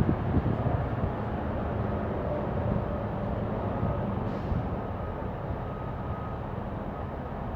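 Steady low rumbling background noise with a faint hum, of the kind a running engine or nearby traffic makes. A faint high tone joins for a few seconds in the middle.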